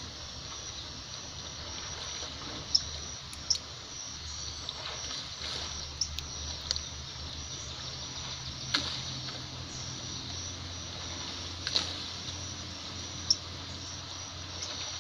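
Flowing river water heard through a submerged camera: a steady hiss, with about six sharp clicks and ticks scattered through it.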